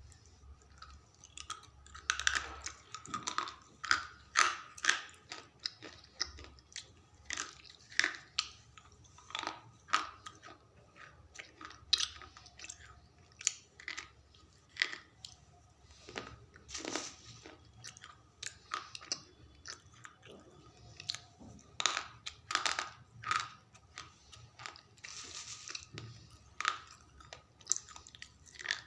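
Slate pencils being bitten and chewed up close: a run of sharp, crisp crunches at an uneven pace, roughly one or two a second.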